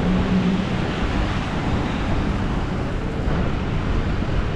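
Steady city street noise: road traffic running past, with wind rumbling on the microphone.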